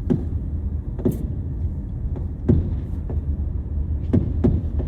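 Fireworks shells bursting with sharp booms, about five in a few seconds, over the steady low rumble of a car heard from inside the cabin.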